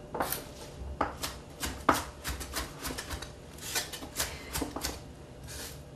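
Chef's knife chopping mixed salad greens on a wooden cutting board: a run of sharp knocks of the blade on the board, about two or three a second.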